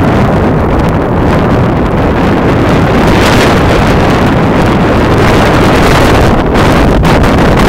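Loud, steady wind noise buffeting the microphone: rushing air from a fast ski descent.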